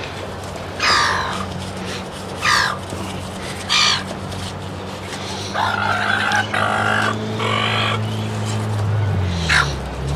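Gulls calling: single harsh squawks about one, two and a half and four seconds in, a run of three calls in quick succession past the middle, and one more near the end, over a steady low hum.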